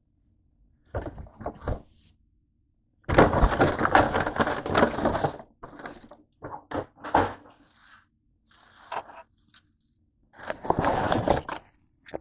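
Takeout food packaging being handled: a paper bag and wrappers rustling and crinkling in several bursts, with a few sharp clicks and knocks between them.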